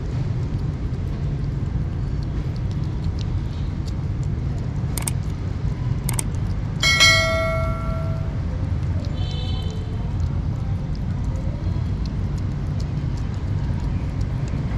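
Kittens chewing and lapping wet cat food, with faint smacking clicks over a steady low rumble. About five seconds in come two clicks, then a bell-like ding, the sound effect of an on-screen subscribe-button animation.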